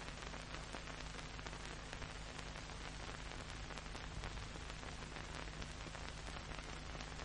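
Steady hiss with fine crackle and a faint low hum: the background noise of an old film soundtrack.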